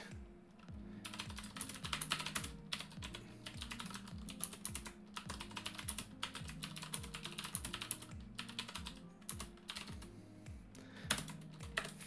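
Typing on the Qwerkywriter S, a typewriter-style mechanical keyboard with round keycaps: a quick, uneven run of key clicks that starts about a second in, with a short lull near the end.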